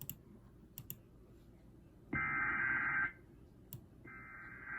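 Emergency Alert System digital header: two harsh, screechy data bursts of about a second each, about two seconds apart. They are the coded alert signal that comes before the two-tone attention signal and the spoken warning.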